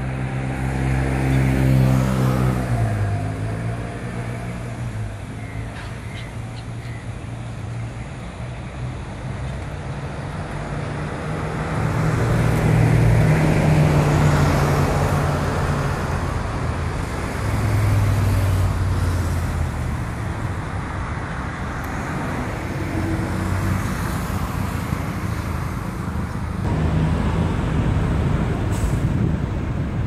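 Road traffic: motor vehicles passing with a steady engine hum. One engine's note drops in pitch in the first few seconds, and the traffic swells louder twice around the middle.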